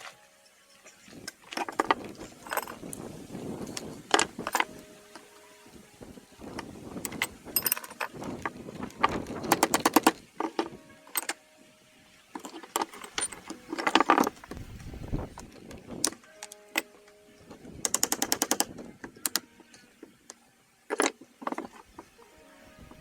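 Hand tools and small metal engine parts clinking and knocking in irregular bunches during teardown of a hit-and-miss engine's governor, with two runs of rapid clicking about ten seconds in and again near eighteen seconds.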